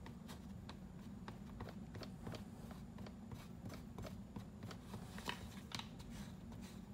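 Flat mixing stick scraping and clicking against a paper plate while stirring thick two-part epoxy paste (Hysol EA 9460), in many small irregular strokes, the sharpest a little after five seconds. A steady low hum runs underneath.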